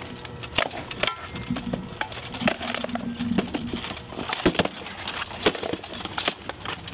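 Armoured sword sparring: rattan practice swords hitting wooden shields and steel helmets in a quick, irregular series of sharp knocks and clacks, with armour rattling between blows.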